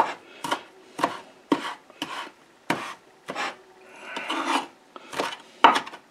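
Chef's knife chopping fresh cilantro on a wooden cutting board: sharp knocks of the blade on the wood, about two a second and a little uneven, with a short scraping stretch about four seconds in.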